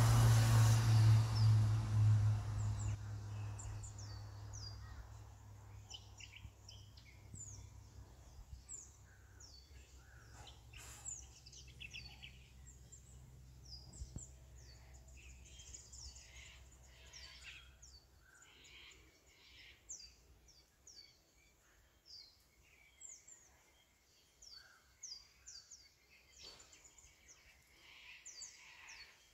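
Birds chirping, many short high notes sweeping downward, scattered throughout. A low engine hum is loudest at the start and fades away over the first few seconds, with a faint low drone lingering until about halfway.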